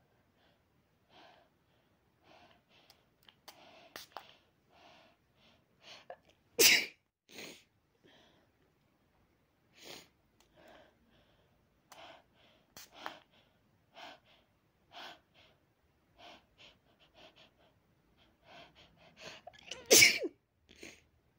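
A person sneezing loudly twice, about seven seconds in and again near the end. Many short, quiet breathy sounds come in between.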